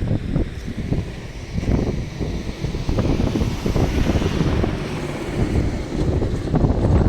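Wind buffeting the microphone in irregular gusts, a heavy low rumble with no steady tone.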